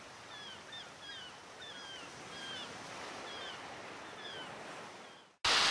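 A small bird calling over and over, short falling chirps every half second or so, over a faint hiss. A loud rushing noise cuts in suddenly at the very end.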